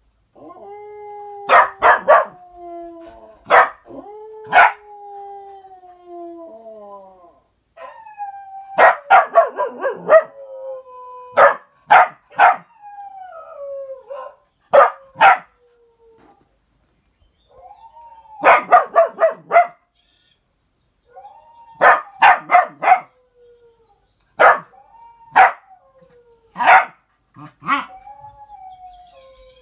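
Dogs howling in long wails that slide downward in pitch, with sharp barks and yips coming in quick clusters of two to five over the howling every few seconds.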